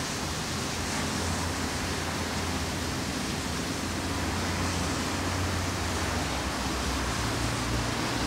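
Narrow-gauge steam tank locomotive moving slowly with its cylinder drain cocks open, giving a steady hiss of escaping steam over a low rumble.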